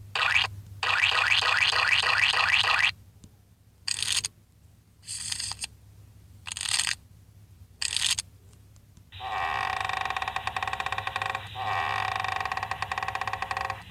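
Air horn and siren sound effects played one after another from a phone air-horn app. A warbling horn tone lasts about two seconds, then come four short blasts a second or so apart, and from about nine seconds in a steady, rapidly pulsing horn tone.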